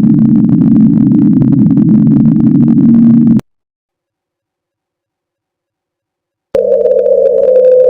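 A loud, steady low drone with a held tone in it, cutting off abruptly a little over three seconds in. After about three seconds of dead silence, a second, higher-pitched drone starts just as abruptly.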